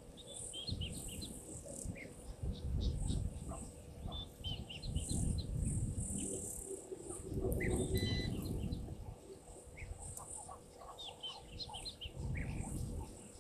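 Small birds chirping in many short, scattered calls, over an uneven low rumble that swells and fades.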